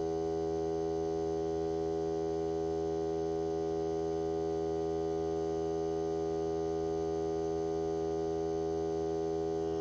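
Hart 20-volt cordless 2-gallon air compressor running continuously while it slowly fills a car tire. It makes a steady hum that holds one pitch throughout.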